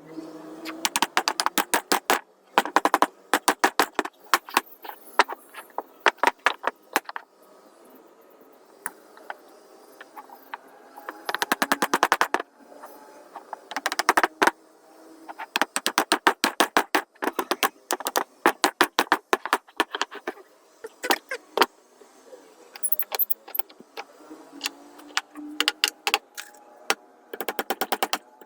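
Rapid trains of sharp mechanical clicks in bursts of a second or two, with short pauses between, from a tool at work on the bench.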